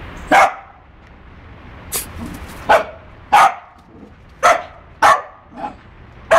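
Small dog barking at a sheep: about seven short, sharp barks at uneven intervals.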